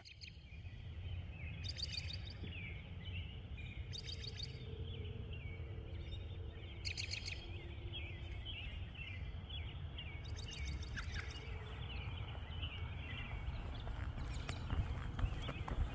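Birds chirping and calling, with four short rapid high trills among the chirps, over a steady low outdoor rumble.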